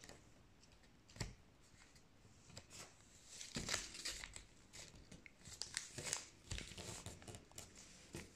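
A sheet of paper being folded and creased by hand into a paper airplane: quiet, intermittent rustling and crinkling, with a few sharper clicks, busier in the second half.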